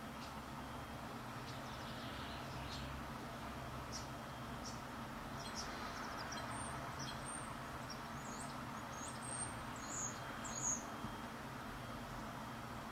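Tits calling: a string of short, thin, high-pitched notes that starts a few seconds in and grows into quicker calls with little upward flicks, loudest shortly before the end. Under them runs a steady low background noise.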